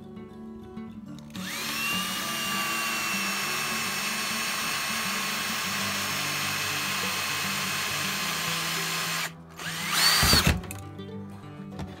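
Power drill boring through the plastic back cover of an 18V battery pack with a twist bit. The motor whine rises to speed about a second in, runs steadily for about eight seconds and stops, then gives a brief, louder spin near the end. Background music plays throughout.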